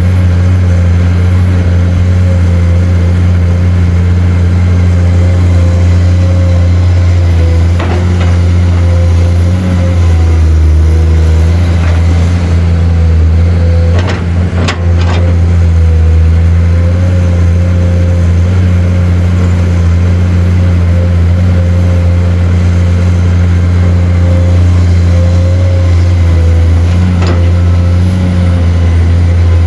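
Excavator's diesel engine running steadily under load, with sharp clanks about halfway through as a load of soil is dumped or the bucket knocks.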